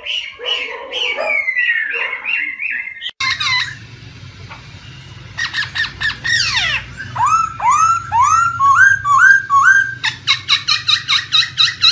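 A laughingthrush singing: harsh chattering notes with a few slurred descending calls, then after a short break about three seconds in, a string of loud rising whistled notes about two a second, and a fast run of repeated notes near the end. A faint low hum sits under the second half.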